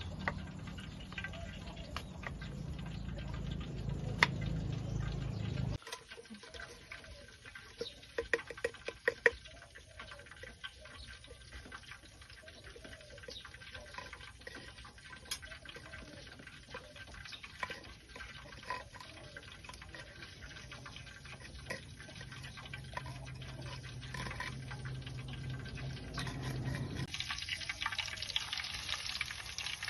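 Food preparation sounds: liquid being handled, with scattered sharp clicks of utensils, and a steady hiss that comes in near the end. The sound stops abruptly about six seconds in.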